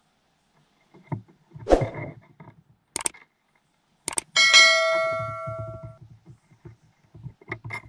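Knocks and clicks of hard objects being handled, then about four seconds in a sharp clang of metal that rings on with several clear tones and fades out over about a second and a half.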